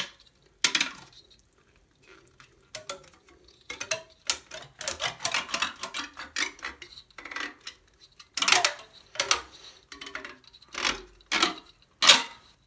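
A hand crimper's jaws squeezing and grinding on a CD: a run of irregular clicks, creaks and scrapes of the tool against the plastic disc, louder in the second half. The disc does not crimp; the jaws only scratch some of its coating off.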